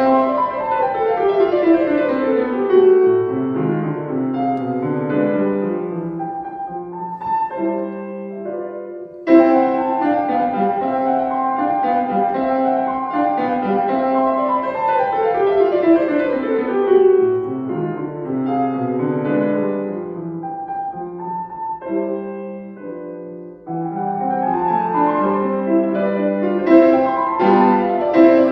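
Solo piano playing a classical piece, with repeated falling runs of notes. A loud new phrase begins about nine seconds in; the playing softens around eight and twenty-two seconds and grows louder again near the end.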